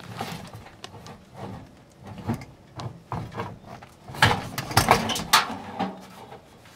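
Irregular knocks, clunks and rubbing of hands and tools working inside a sheet-metal air handler cabinet while the blower motor is being removed, with a cluster of louder sharp knocks about four to five and a half seconds in.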